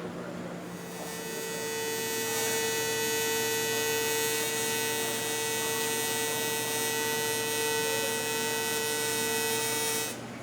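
AC TIG welding arc on 3/16-inch aluminum: a steady high-pitched buzz that starts about a second in, swells over the next second, holds and cuts off suddenly near the end.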